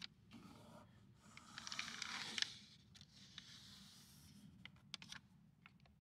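Faint rubbing and scraping of fingertips and fingernails working a textured adhesive sill-protector film down into a crease, with the paper backing rustling. The rubbing swells for about a second, and a few small ticks follow.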